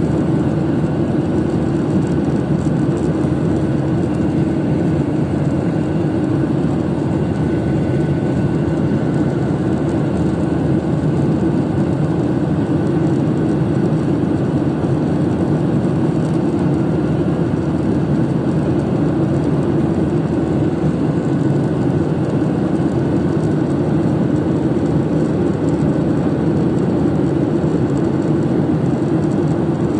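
Steady jet airliner cabin noise during the climb after takeoff: engine and airflow noise heard inside the cabin at a window seat, even and unbroken, with a faint steady whine above it.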